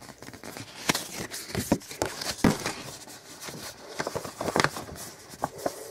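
Folded paper leaflet being unfolded and handled: irregular crinkling and rustling of paper with a few sharper taps.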